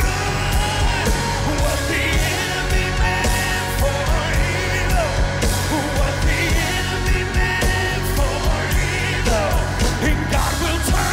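Church worship music: a band playing with singing over a steady beat.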